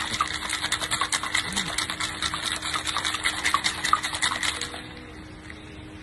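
Ice cubes rattling hard inside a metal cocktail shaker being shaken, a fast, dense clatter that stops about three-quarters of the way through.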